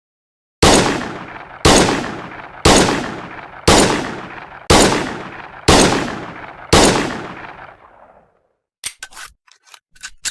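M1911 .45 pistol fired seven times, about one shot a second, each shot followed by a long echoing tail. A few short sharp clicks follow near the end.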